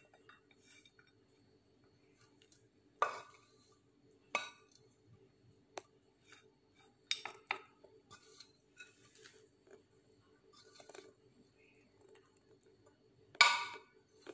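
A metal pan and spatula knocking and clinking against a ceramic plate as sticky peanut-butter-coated popcorn is scraped out onto it. The knocks are a few separate ones, loudest about three seconds in and again near the end, over a faint steady hum.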